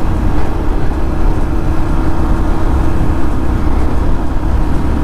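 Yamaha FZ-S V3 motorcycle being ridden at a steady speed: its 150cc single-cylinder engine running with an even note over a strong low rumble.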